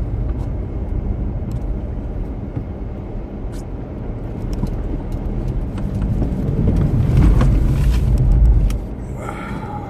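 Car driving, its engine and road noise running steadily as a low rumble, then swelling louder with a rushing hiss for a second or two near the end before dropping back.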